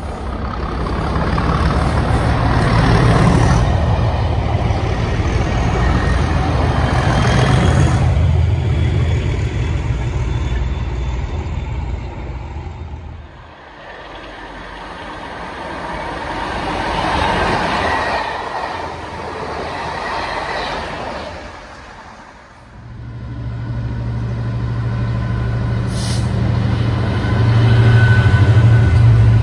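Three trains passing in turn. First, diesel locomotives approaching with a loud engine note. After a cut, a second train approaches through a cutting, getting louder. Then a GBRf class 66's two-stroke V12 diesel drones low and steady as it hauls empty flat wagons by, with a short high squeal near the end.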